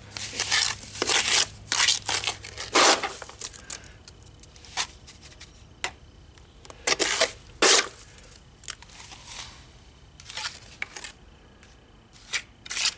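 Hand and brick trowel packing and scraping wet rapid-set mortar onto rough concrete, in a run of short, irregular scrapes.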